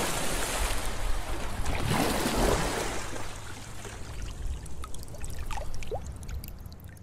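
Water splashing and trickling, swelling again about two seconds in, then fading out, with a few small bubbling plops near the end.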